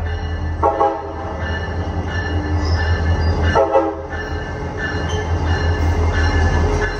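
CSX GP40-3 diesel locomotive passing close by, its engine giving a steady low rumble, with two short horn blasts, about a second in and again near four seconds.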